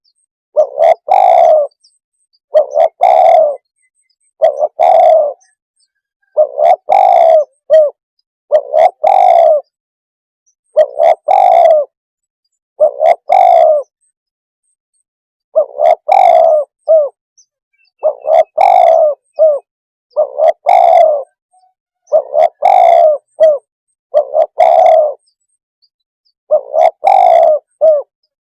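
Spotted dove calling: a loud two-part cooing phrase repeated about every two seconds, with a short pause near the middle. This is a lure call played to decoy wild doves in.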